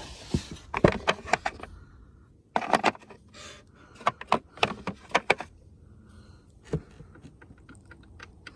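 Small metal Torx bits clicking and rattling in several short clusters as they are picked from a bit kit and tried in the screws.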